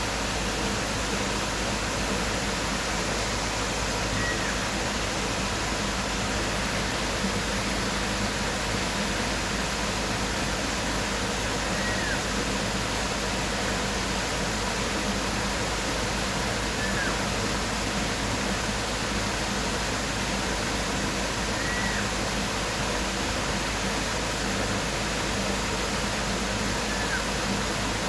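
Tropical waterfall rushing steadily, with a bird giving a short, faint falling whistle about every five seconds.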